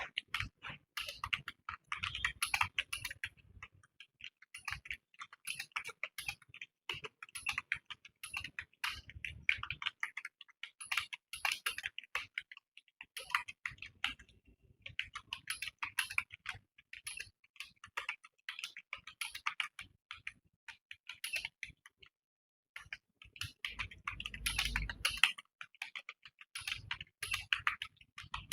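Fast, continuous typing on a computer keyboard, many key clicks a second with a few short pauses, the longest of them about two-thirds of the way through.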